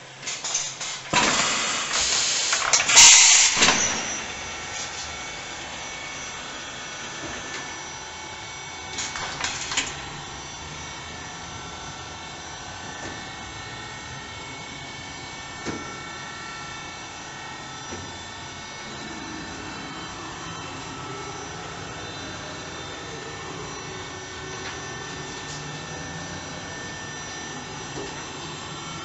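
CNC vertical machining center running, a steady machine hum with several held whining tones. There is a loud hissing burst for a few seconds near the start and a shorter one about nine seconds in.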